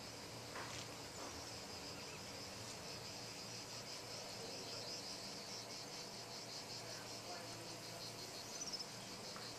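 Insects chirping steadily, a high, rapidly pulsing trill, with a short louder chirp near the end.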